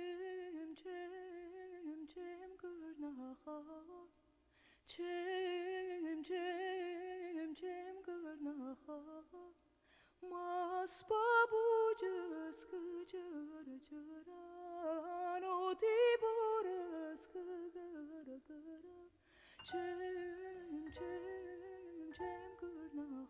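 A single voice humming a slow, wordless melody with vibrato, in long phrases with two short breaks; near the end, steady held instrument notes join in.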